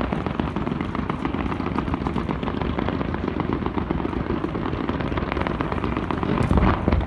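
Fireworks fired in rapid succession: a dense, steady stream of quick pops and crackles. Heavier, louder booms start about six seconds in.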